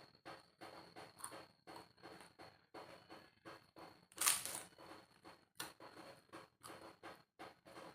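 Close-up chewing of instant noodles in curry soup, with soft wet mouth sounds at about two to three chews a second, and one louder slurp about four seconds in.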